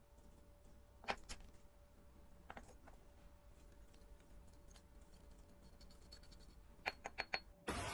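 Small metal tools clicking and tapping on watch parts during a watch service: a few sparse clicks, then a quick run of four clicks near the end. A sudden rushing hiss starts just before the end.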